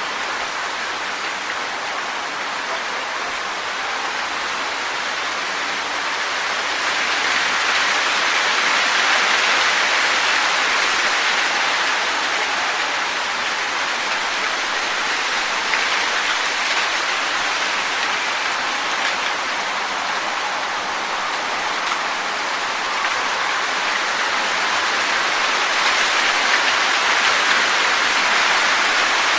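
Wind blowing through trees, rustling the leaves in a steady hiss that swells in gusts about a third of the way in and again near the end.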